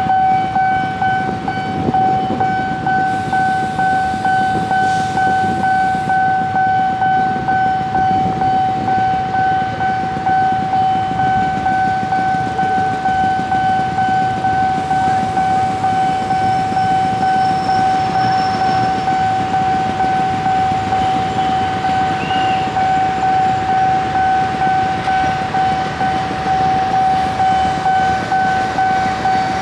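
Railway level-crossing warning alarm sounding with the barrier down: one steady high tone that pulses in a regular beat, over a low rumble of waiting traffic and the approaching train.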